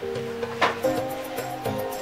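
Background music of held melodic notes, with one sharp percussive hit a little past half a second in.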